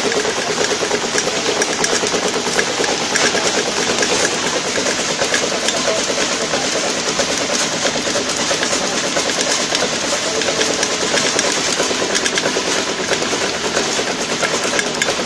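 High-speed automatic toffee packing machine running steadily, with a rapid, even mechanical clatter.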